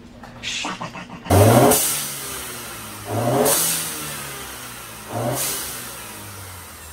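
Mercedes C250 (W204) turbocharged engine revved three times in quick blips, each rev followed by a hissing whoosh from the newly fitted aftermarket blow-off valve venting boost as the throttle closes.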